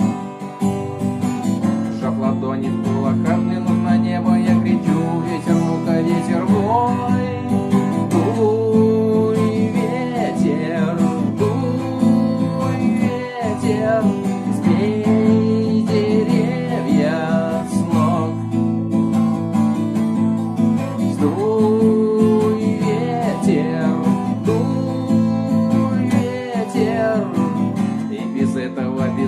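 Instrumental break of a rock song: strummed acoustic guitar chords under a lead melody that slides and bends in pitch.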